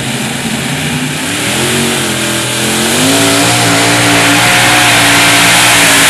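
Competition pulling tractor's engine revving up. Its pitch climbs about two seconds in and again about three seconds in, then holds at high revs as it grows louder into the pull.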